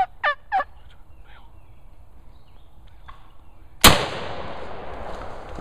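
A wild turkey gobbles in the first second, a quick run of warbling notes. About four seconds in comes a single loud shotgun shot, its echo trailing off.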